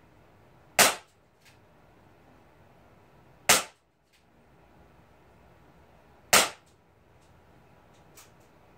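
Crosman SR357 CO2 BB revolver firing three shots, about two and a half seconds apart, with a faint click near the end.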